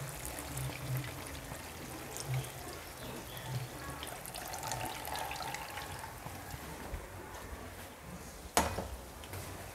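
Thick coconut milk being poured into a pot of cooking young papaya, trickling and splashing, with small clicks. One sharp knock comes a little before the end.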